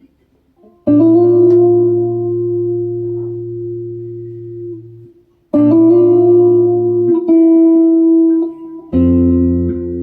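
Slow improvised guitar music: a chord struck about a second in and left to ring for several seconds, then further chords struck past halfway and again near the end, each sustained.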